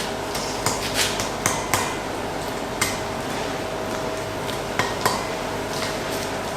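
Hammer striking iron on an anvil during hand forging: about seven sharp, ringing blows at uneven spacing, five in the first two seconds, one near the middle and two close together near the end. A steady hum runs underneath.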